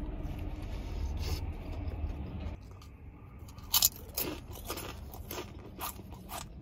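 Close-up chewing of a large bite of a Subway sandwich: wet crunching and smacking of the mouth, with sharper crunchy clicks in the second half.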